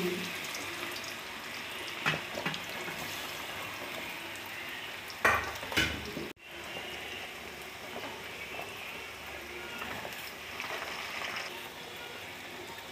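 Pieces of raw banana deep-frying in hot oil: a steady sizzle, with a few sharp knocks of a utensil against the pan about two and five seconds in.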